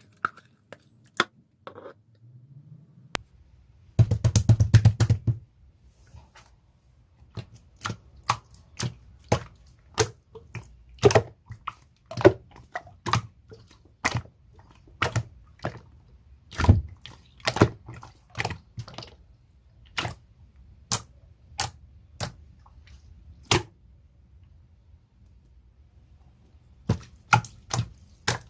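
A large slime being pressed and worked by hand, making sharp popping clicks: a fast run of pops about four seconds in, then single pops about once a second, and a quick cluster near the end.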